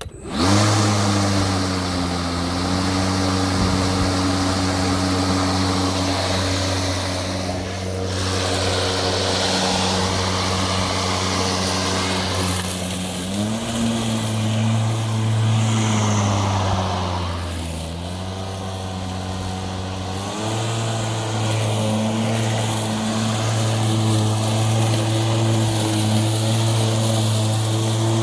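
Milwaukee cordless electric lawn mower starting up and running with its motor and blade spinning at a steady hum, kept running by a clamp holding in its loose power button. Its pitch steps up about 13 seconds in, sags briefly around 18 seconds, and steps up again around 20 seconds.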